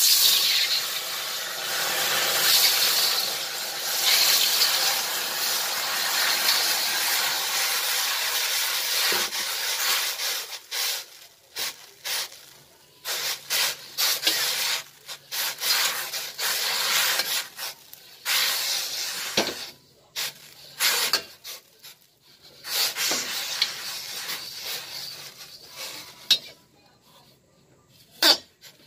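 Water poured into a hot, freshly blued steel wok, sizzling with a loud continuous hiss for about ten seconds. Then a steel-wool scrubber pushed with a spatula scours the wet wok in short, irregular strokes.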